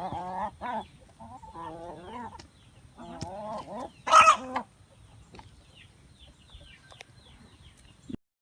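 Chickens clucking in a run of pitched calls, with one loud, harsh squawk about four seconds in, followed by fainter short chirps.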